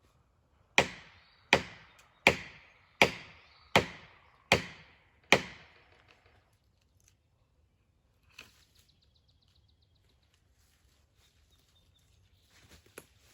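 Seven sharp chopping blows into wood, evenly spaced about three-quarters of a second apart, each dying away quickly, as a tree is cut into for a hinge cut.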